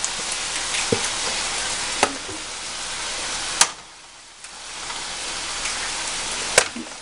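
Cold cooked rice and eggs frying in butter in a pan over low heat, with a steady sizzle that dips briefly around the middle. Three sharp clicks stand out, about two, three and a half and six and a half seconds in.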